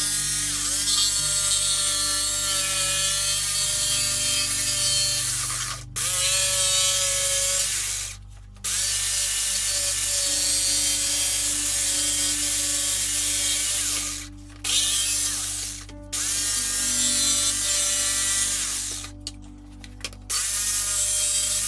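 Corded Ryobi RJS850 jigsaw cutting out a traced opening in a wooden batten, its motor and reciprocating blade rattling steadily. It stops briefly and restarts several times, about 6, 8, 14, 16 and 20 seconds in.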